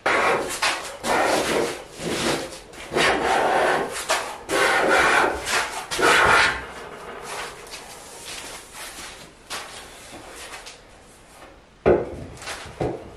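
Hand plane shaving the edge of an oak slab, a quick run of rasping strokes. The strokes ease off for several seconds and start again near the end.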